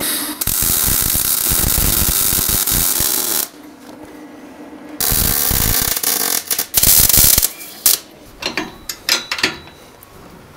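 MIG welder arcing on steel in two runs of steady crackling hiss, about three seconds and then about a second and a half, followed by a short, louder burst. Near the end come a few scattered sharp clicks.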